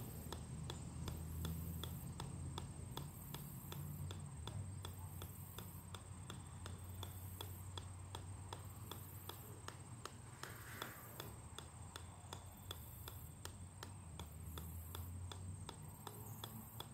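A golf ball bouncing off the steel head of an 8-pound sledgehammer, a steady run of sharp clicks a little over two a second.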